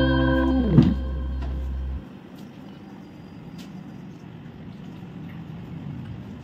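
Background music with held chords, with a short falling swoop about a second in, stops about two seconds in. After it there is only a steady low rumble of background noise with a few faint ticks.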